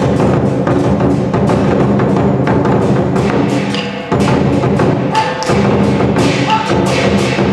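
Chinese lion dance percussion: the big lion drum with clashing cymbals playing a fast, driving beat. It drops off briefly about four seconds in, then comes back at full strength.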